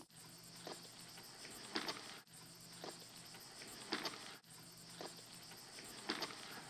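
Faint steady chirring of insects in a summer countryside ambience, with a short, sharp chirp about once a second.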